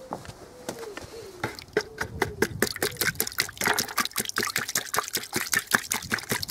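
Bristle paintbrush being swished and rinsed in a bucket of water: rapid, irregular splashing and sloshing that gets busier and quicker about a second and a half in.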